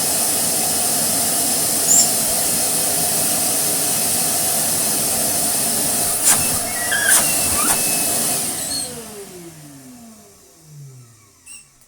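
Titan wet and dry vacuum's motor running steadily at full speed, now working again after dust was cleared from its carbon brushes. A couple of sharp clicks come around the middle. Near the end the motor winds down with a falling whine as the faulty switch flips off.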